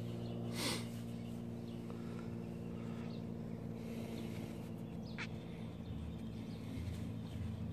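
A steady low hum runs throughout, with a brief papery rustle about a second in as a paper shop towel is handled against the brake caliper.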